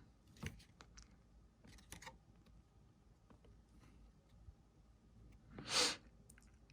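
Trading cards being handled quietly: a few faint clicks and taps of card stock, then one short swish about six seconds in.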